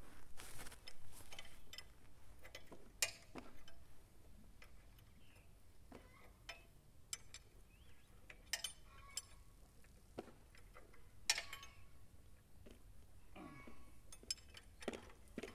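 A box-end wrench working the belt tensioner nuts on a New Holland 451 sickle bar mower: faint, scattered metallic clicks and clinks, with runs of quick ticking as the wrench turns, loosening the tension on the drive belt.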